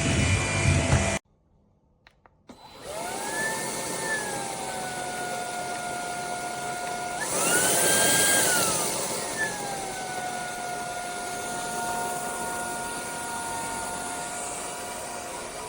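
Dreame Z30 cordless stick vacuum's motor spinning up with a rising whine, then running steadily. About four seconds later it rises to a higher pitch with a louder rush of air for about two seconds, then drops back to its steady run. A louder noisy stretch before it cuts off abruptly about a second in.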